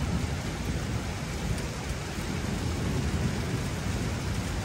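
Steady rain with a low, continuous rumble of thunder underneath.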